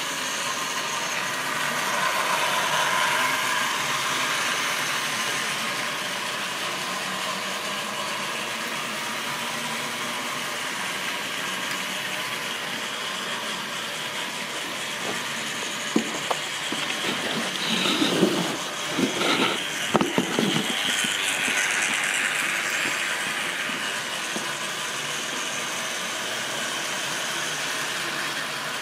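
OO-gauge model trains of plastic tank wagons running on the layout's track: a steady mechanical rattle and rumble of wheels and motor, with a run of sharper clicks and knocks a little past halfway.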